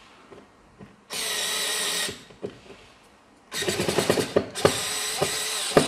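Xiaomi Mijia electric screwdriver's motor running in two bursts, about one second and then about two seconds long, driving a screw into a cabinet-door hinge. The second, longer run has irregular clicks in it.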